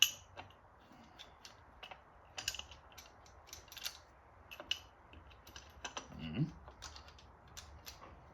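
Scattered light metallic clicks and taps of cam caps and hand tools being handled on a Subaru EJ257 cylinder head, with a brief vocal grunt about six seconds in.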